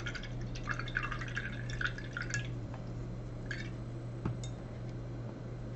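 Gouache paintbrush working wet paint, a quick run of short, scratchy, wettish strokes and dabs for the first two and a half seconds, then only a few faint ticks. A steady low hum sits underneath throughout.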